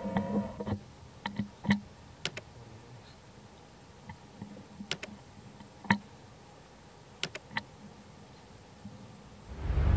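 Scattered sharp mouse-click sound effects, about a dozen single clicks and quick pairs spread over several seconds. A brief low rumble swells up near the end.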